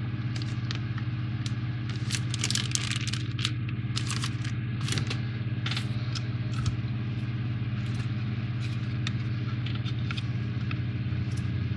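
Small plastic model parts clicking and rattling as they are handled, many short irregular clicks over a steady low hum.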